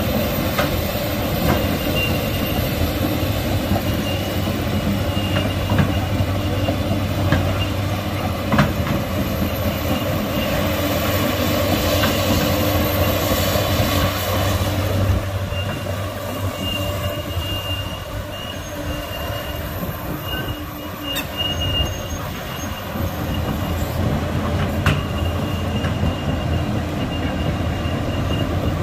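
A 2011 Komatsu PC290LC-10 excavator's six-cylinder diesel engine running steadily, with scattered metallic clanks and thin high squeals from the machine, the squeals coming more often in the second half.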